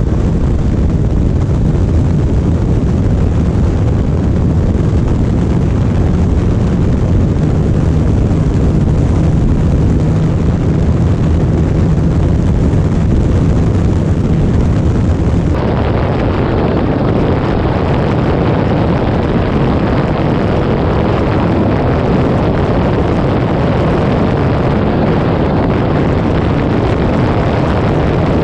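Sport motorcycle held at steady high speed on the highway: a loud, even engine drone under a thick rushing noise. The character of the sound changes abruptly a little past halfway through, as at a cut.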